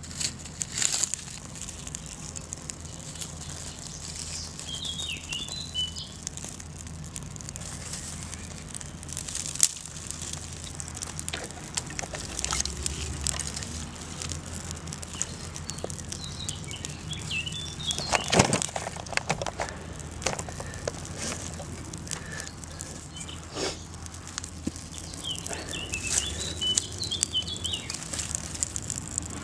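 A small bird singing short chirping phrases three times in the background, over sharp crackles and snaps from dry twigs and bark as kindling is laid on a freshly lit tinder fire and catches. The loudest is a single sharp crack a little past halfway.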